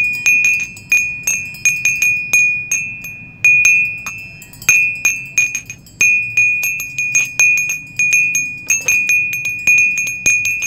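High metal chime tones struck quickly and irregularly, several a second, each ringing briefly and fading, mostly on one high note.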